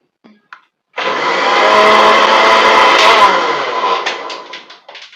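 Countertop blender switched on about a second in, running loud and steady with a high whine as it blends milk, vanilla ice cream and an ice cube into a thick milkshake, then winding down after about three seconds. A few light clicks follow as it stops.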